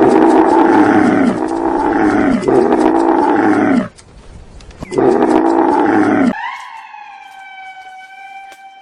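A large animal roaring loudly: three long falling roars in a row, a short pause, then one more. After that a thin, steady whistling tone sounds, falling slightly in pitch.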